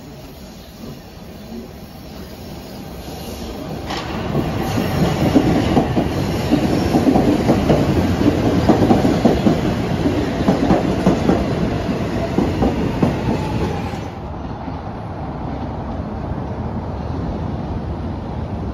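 SEPTA Market–Frankford Line M-4 train arriving and passing close by, growing louder from about four seconds in, with rapid clacking of its wheels over the rail joints. About fourteen seconds in the sound cuts abruptly to a steadier, quieter rumble.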